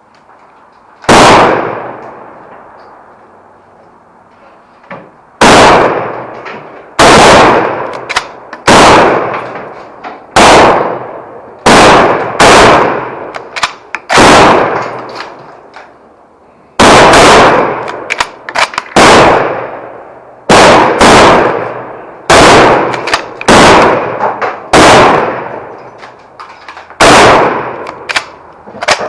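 Rifle fire from a line of shooters with service rifles, including a Lee-Enfield No. 4 Mk 1* in .303 British: about twenty loud shots at irregular intervals, some close together, each trailing off over a second or so. This is the start of a timed string of ten rounds each at 100 metres.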